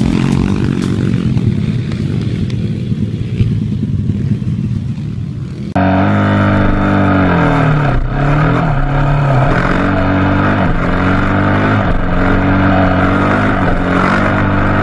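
Dirt bike engine noise, first a rough, fading stretch with knocks. Then, after an abrupt cut about six seconds in, a dirt bike engine running close up, its pitch dipping and rising again and again as the throttle is worked.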